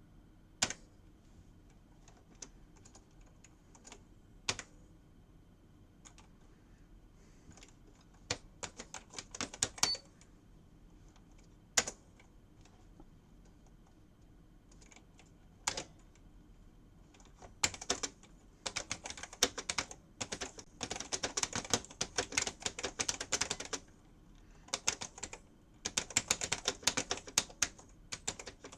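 Sears 10K40 electronic daisy wheel typewriter typing: a few scattered single strikes at first, then a fast, dense run of clattering print strikes from a bit past halfway, broken by two short pauses.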